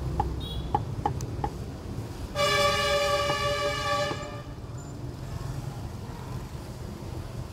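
A vehicle horn gives one steady honk of nearly two seconds, a couple of seconds in, over a low rumble of traffic. Before it come a few sharp knocks, likely from a cleaver on a wooden chopping board.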